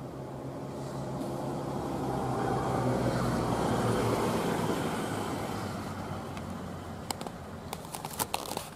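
A motor vehicle passing, its low engine hum swelling and then fading away. A few sharp clicks come near the end.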